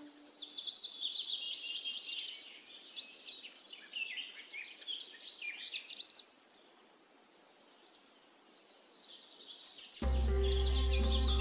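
Many small birds chirping and calling in a busy chorus, thinning out for a couple of seconds past the middle. Background music with low held notes starts abruptly near the end.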